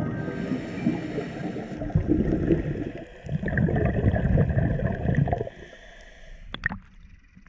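Scuba regulator exhaust bubbles gurgling underwater: two long exhaled breaths with a short pause between. The sound falls away about five and a half seconds in, followed by a couple of sharp clicks.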